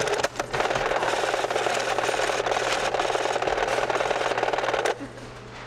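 Supermarket checkout-counter noise: a dense, rapid rattle that stops abruptly near the end, leaving quieter store background.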